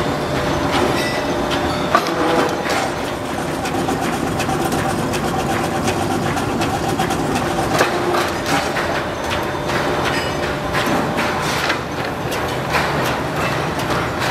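Belt-driven steel rolling mill running with a steady clattering din and frequent metallic clanks as a red-hot steel plate is fed between its rollers with tongs.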